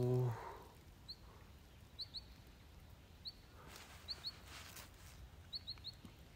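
A small bird chirping: short, high, slightly rising chirps, about a dozen, irregularly spaced, some in quick pairs or triplets, faint over quiet open-air background.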